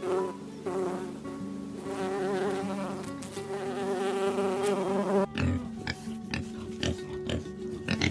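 A bumblebee buzzing in a wavering drone for about five seconds, over soft background music. Then, with an abrupt change, a wild boar grunts and snorts in short irregular sounds.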